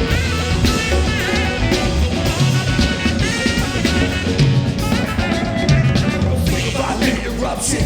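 Rap-rock band playing live, an instrumental passage with no vocals: drum kit and bass under pitched lines that bend and glide.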